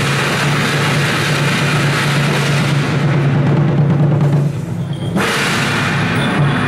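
Temple procession drums and cymbals over a sustained low tone, dipping briefly about two-thirds of the way through and then resuming.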